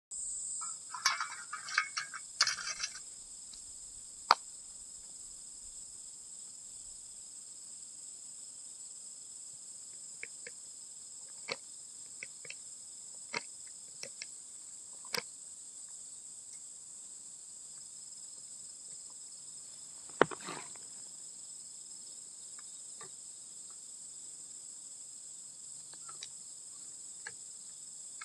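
Steady high-pitched insect chirring, with scattered light clicks and clinks of small camp cookware and containers being handled. A cluster of rustling and knocks comes in the first three seconds, and one sharper clack about twenty seconds in.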